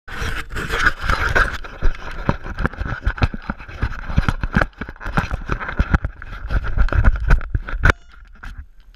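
Close handling noise on an action camera: rapid, irregular knocks, bumps and scrapes as the camera is moved and set on its mount, stopping about eight seconds in.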